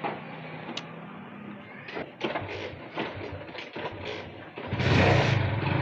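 Faint clicks and rustling from handling as someone climbs onto a motorcycle. About five seconds in, the motorcycle's engine comes up loudly with a steady low hum and keeps running as the bike sets off.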